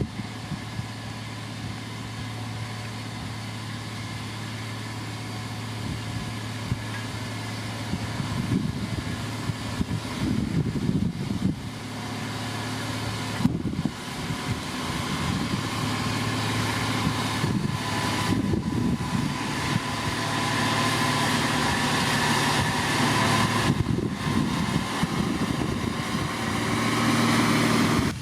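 Diesel engine of heavy road-construction machinery running steadily, getting louder over roughly the second half.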